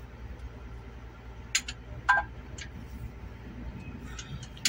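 Three short metallic clicks between about a second and a half and two and a half seconds in, the middle one a brief ringing clink, from the exposed valve train (rocker arms, push rods) of a truck diesel engine's open cylinder head being handled. A steady low hum lies underneath.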